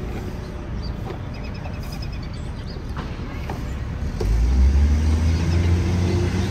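City street traffic, with a vehicle's engine rumbling loudly close by from about four seconds in.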